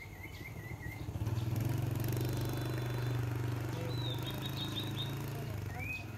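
A passing motor vehicle's engine runs steadily for several seconds, building up a little over a second in and fading near the end. Birds call over it: a wavering trill at the start, a quick series of short high notes in the middle, and a rising call near the end.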